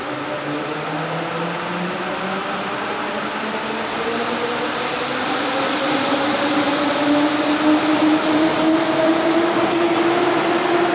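Berlin S-Bahn electric train moving through a station, its drive whine rising steadily in pitch and getting louder as it gathers speed over the rumble of the wheels. A few short, high squeaks come near the end.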